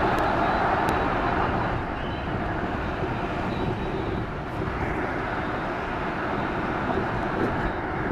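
Steady road and engine noise of a moving vehicle in city traffic, heard from on board.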